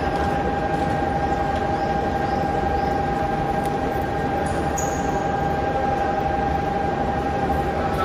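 Electric commuter train standing at an underground platform with its doors open: a steady, unchanging high tone over the dense bustle of the platform.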